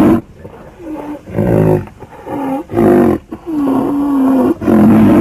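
White rhinoceros calling: a run of short, pitched, moaning calls, about one a second, some bending up and down in pitch.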